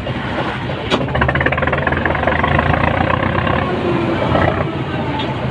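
A wooden passenger boat's engine running, with a sharp click about a second in. The engine then grows louder with a fast clatter, as if throttled up, and eases back near the end.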